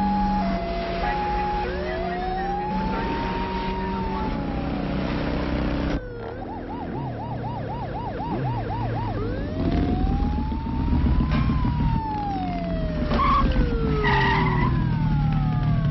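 Police siren switching through its modes: a two-tone hi-lo, slow rising and falling wails, and about six seconds in a fast yelp of roughly three cycles a second. A motorcycle engine runs steadily underneath.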